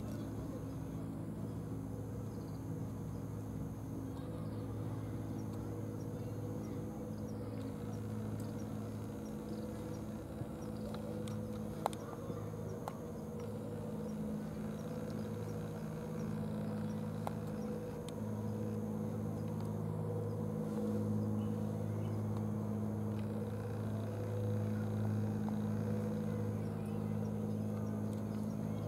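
Steady low engine hum, with a few faint clicks around twelve and seventeen seconds in.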